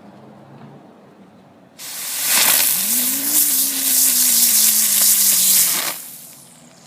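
Ground bloom flower firework going off: a loud spraying hiss that starts suddenly about two seconds in, with a low tone under it that rises and then slowly sinks in pitch, cutting off after about four seconds.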